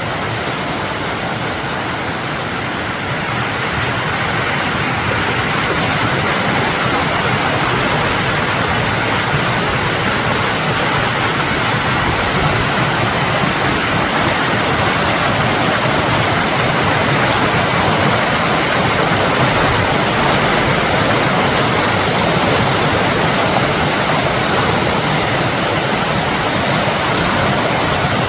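Rushing mountain creek running high with snowmelt, a loud steady rush of water that swells a little a few seconds in.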